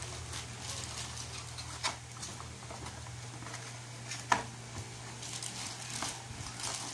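Handling noise: scattered light clicks and taps, one sharper knock about two-thirds of the way in, over a low steady hum that stops shortly after.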